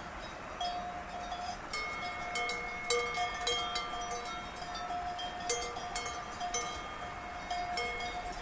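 Cowbells on grazing cows clanking irregularly, several bells at different pitches, each strike ringing on briefly.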